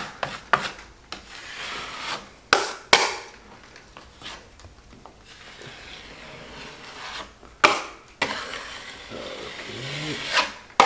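Drywall taping knife scraping joint compound along a corner bead, smoothing and wiping the mud, with several sharp taps and clicks of the knife's blade.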